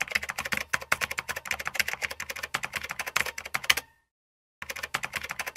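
A fast run of sharp key clicks like typing, stopping about four seconds in and starting again after a short pause.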